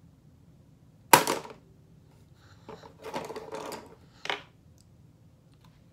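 Cosmetics being handled while lips are lined: a sharp click about a second in, the loudest sound, then a stretch of rattling handling noise and a second, shorter click a little past four seconds.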